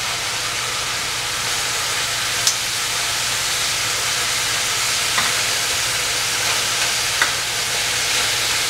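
Beef ribs searing in hot oil in a stainless steel pan, sizzling steadily. A few short clicks come as metal tongs turn the pieces over to sear the second side.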